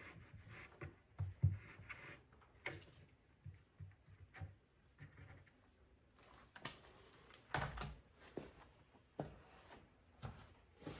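Scattered light knocks and clicks of hand work and handling in a small workshop room, several sharper ones about a third of the way in and again past halfway.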